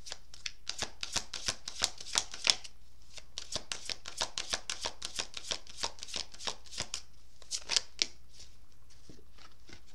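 A deck of tarot cards being shuffled by hand: a quick run of soft card clicks and slaps that thins out after about eight seconds.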